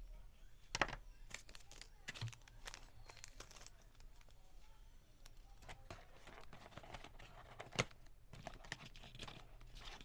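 Handling noise of unboxing: packaging and a USB cable crinkling and rustling, with scattered light clicks and taps against a cardboard box and its insert. Two sharper knocks stand out, one about a second in and one near eight seconds.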